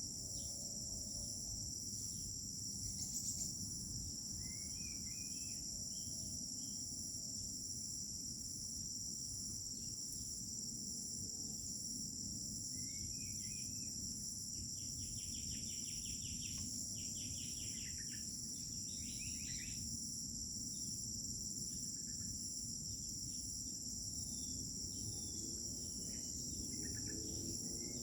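Crickets trilling steadily in several high, unbroken tones, with scattered bird chirps and short rapid trills over them, busiest in the middle stretch, over a low background rumble.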